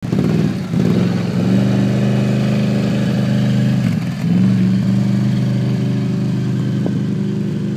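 Can-Am Outlander Max 800R ATV's V-twin engine, fitted with an HMF aftermarket exhaust, running at low speed as the quad pulls away and rolls slowly on gravel. The engine note dips briefly and comes back up twice, just under a second in and about four seconds in.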